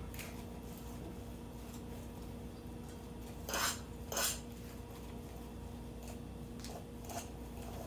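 Mashed potato and parsley being mixed by hand in a stainless steel mixing bowl. The bowl gives two short scrapes or knocks about half a second apart near the middle, over a faint steady hum.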